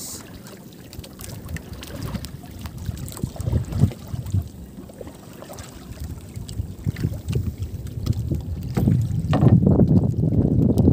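Wind buffeting the microphone and water slapping against the hull of a small outrigger canoe drifting at sea, in irregular gusts that grow louder for the last couple of seconds.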